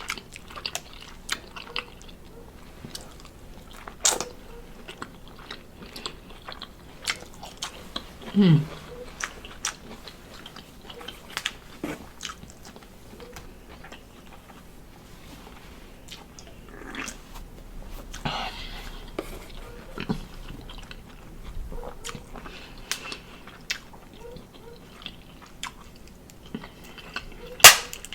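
Close-miked eating of a seafood boil: chewing and biting with scattered clicks and crunches. A short falling hum about eight seconds in, and a sharp crack near the end, the loudest sound.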